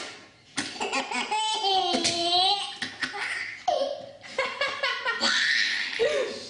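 A baby laughing in several bouts of belly laughter, with high, wavering squeals of laughter about two seconds in.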